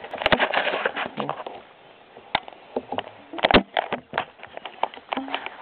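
Handling noise from a camera lying face-up on the ground as it is touched and nudged: a rustling noise in the first second, then scattered sharp clicks and knocks.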